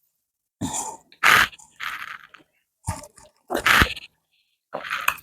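Mouth sounds of someone eating rice fufu with okra soup: chewing and wet smacking in about six short bursts separated by brief silences.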